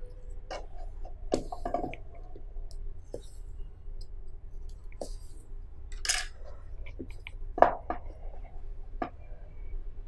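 Hands unboxing a smartphone's cardboard retail box: scattered light clicks and taps of fingers and a plastic tool on the cardboard, a short scraping rasp about six seconds in as the seal sticker is cut and peeled, and a few soft knocks later as the box is pushed open.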